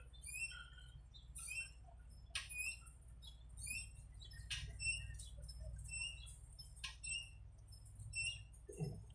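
Small birds chirping in quick, short, high notes, repeating throughout, with a few sharp clicks and a low steady rumble underneath.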